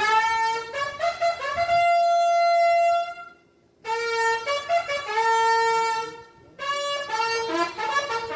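Brass instruments of a military band playing a melody of held and quick notes, broken by two short pauses.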